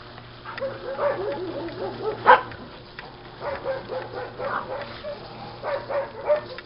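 Dogs barking and yipping in short repeated calls, the loudest a single sharp bark a little over two seconds in.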